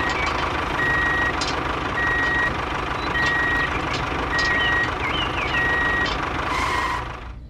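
Truck reversing alarm beeping steadily, one short beep about every 1.2 seconds, over a steady engine rumble; the sound cuts off abruptly near the end.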